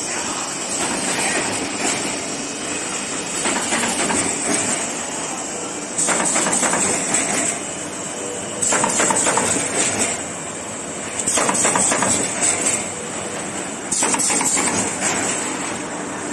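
Corrugated carton partition assembly machine running, a dense mechanical clatter with a high hiss that surges louder about every two and a half to three seconds as it cycles.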